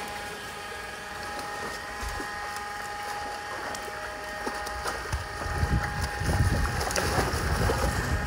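Water splashing and tilapia thrashing as a net is hauled in through a fish tank, growing louder from about five seconds in, over a steady hum.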